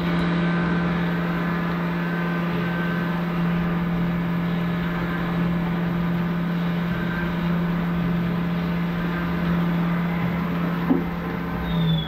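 Syil X7 CNC vertical mill spindle turning a two-flute chamfer mill at about 10,000 rpm through a light deburring pass: a steady hum with overtones, under the hiss and splash of flood coolant spraying over the vise and part.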